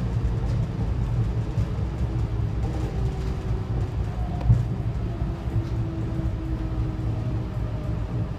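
Diesel railcar running and slowing into a station, heard from inside the carriage: a steady low rumble with faint whines that drift lower in pitch, and a single knock about four and a half seconds in.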